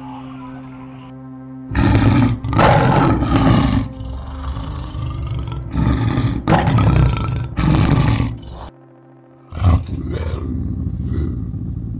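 Lion roaring: two runs of loud, deep roars, the first starting about two seconds in and the second about six seconds in, then a shorter, weaker pair of calls near the end. Soft music with held tones is heard before the roars and stops when they begin.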